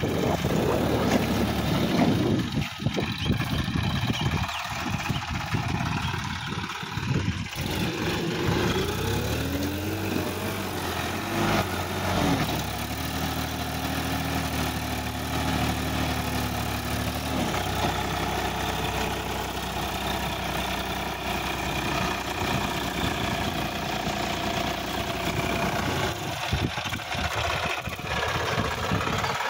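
Sonalika DI-50 RX tractor's diesel engine running as the tractor drives through roadside weeds. About a third of the way in a whine rises and falls, then holds steady for a few seconds before the engine settles to an even sound.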